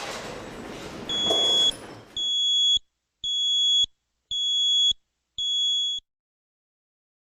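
Alarm sounder of an explosion-proof warning light beeping: five high-pitched beeps, each just over half a second long, about one a second, then it stops.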